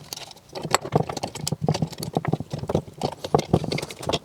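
Irregular clicks and knocks of small metal rig parts being handled and set down on a cardboard-covered workbench.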